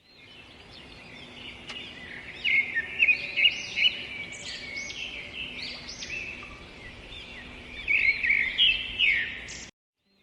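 Several small birds chirping and calling at once, a busy mix of short, overlapping high chirps with louder bursts, cutting off suddenly near the end.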